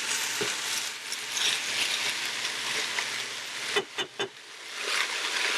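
Chicken breast, onions and garlic frying in a pot, with a steady sizzle that breaks off briefly a few times about four seconds in.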